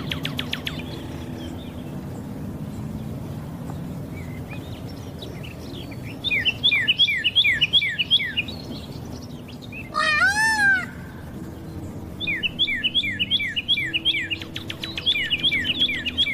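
Birds chirping: a buzzy trill at the start, two runs of quick falling chirps, and another trill near the end. About two-thirds of the way through there is one short call that rises and falls, all over a low steady background hum.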